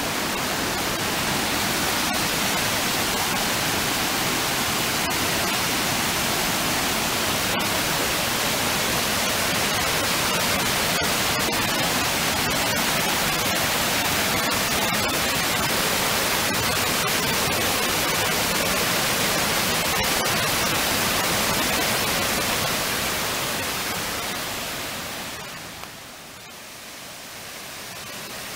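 Rushing white water of the Una river's rapids and small waterfalls, a steady dense roar. It drops away briefly near the end and then comes back.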